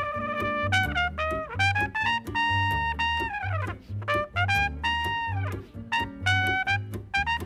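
Trumpet playing a jazz melody line in a small trad-jazz band, including two long held notes midway, over plucked double bass keeping a steady beat and strummed guitar chords.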